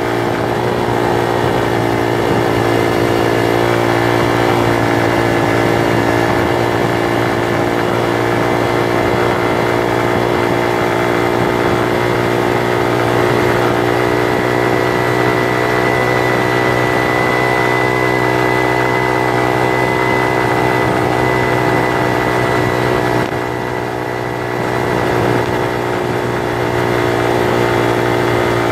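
Bullit Hero 125 motorcycle's single-cylinder 125 cc engine running at a steady cruising pace while the bike rides along. It goes briefly quieter about twenty-three seconds in, then picks up again.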